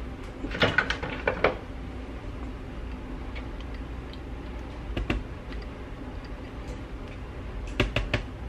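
Light clicks and taps of a measuring cup and silicone spatula knocking against a plastic food-processor bowl as syrup is scraped out of the cup: a quick cluster about a second in, one near the middle and a few more near the end.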